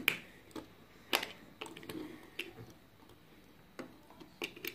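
Plastic Lego pieces clicking as Ninjago minifigures are handled and fitted onto spinner bases: about eight scattered, irregular clicks, the loudest right at the start and about a second in.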